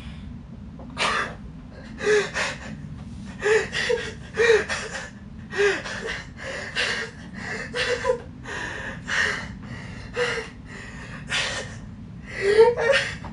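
A young man's helpless, near-silent laughter: a run of sharp, breathy gasps, about one or two a second, some with a brief squeak of voice. The gasps grow louder near the end.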